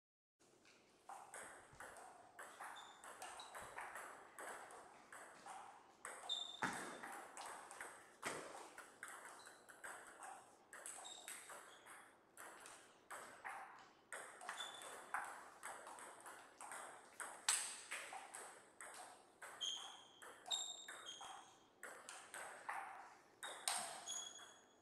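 Table tennis ball struck back and forth by paddles and bouncing on the table through several rallies: a quick, uneven run of sharp clicks, some with a short ringing ping.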